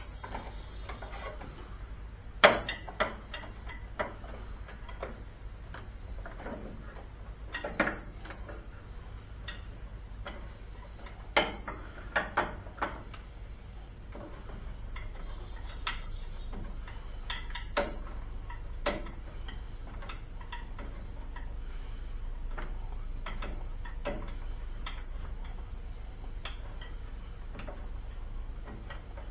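Irregular metallic clicks, taps and knocks of hand tools and small metal parts being handled while wiring on a riding lawn tractor is worked on, with the sharpest knock about two and a half seconds in and small clusters near the middle, over a steady low hum.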